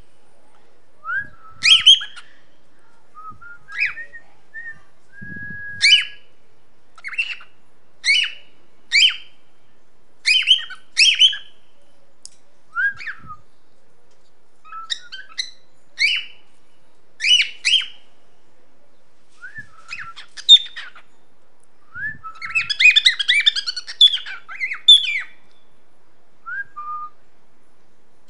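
Male cockatiel's first attempts at song: a series of short whistled chirps about once a second, a brief held whistle about five seconds in, and a jumbled burst of warbling notes in the last third.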